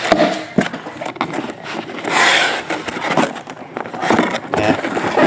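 A cardboard shipping case being opened by hand, with its shrink-wrapped trading-card hobby boxes lifted out: cardboard scraping, plastic crinkling and small knocks, with one longer hissy scrape about two seconds in.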